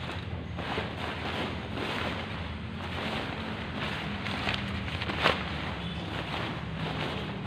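Ripstop tent fabric rustling and crinkling as it is handled and pulled about. There are many short scratchy swishes, with one sharper, louder crinkle about five seconds in.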